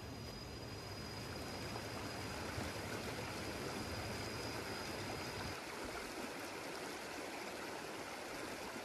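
A river running full over rocks: a steady rush of flowing water.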